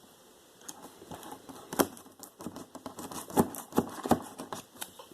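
Cutting and scraping through thick packing tape on a cardboard box: an irregular run of sharp clicks and scratchy scrapes, busiest in the second half.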